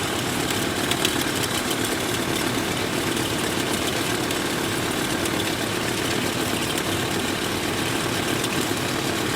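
1998 Chevrolet K2500 pickup's V8 idling steadily under the hood, with the alternator making a noise that the owner puts down to a bad alternator bearing.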